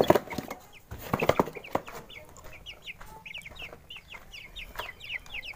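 Chickens peeping: a rapid string of short, high, falling chirps, with a few knocks and rustles in the first two seconds.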